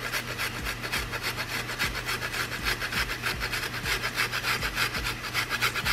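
Ginger being grated on a handheld stainless steel fine grater (microplane): a steady run of rhythmic rasping strokes.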